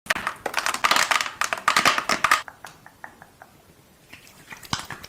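Close-up crackly rubbing and rustling of makeup being removed, dense for about two and a half seconds, then only a few faint taps and clicks.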